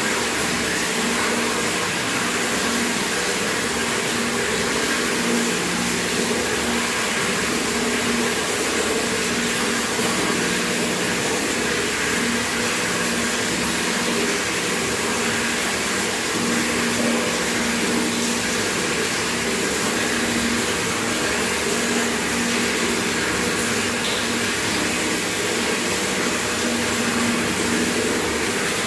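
Tap water running steadily into a bucket, a continuous even splashing and gurgling with a faint drone under it.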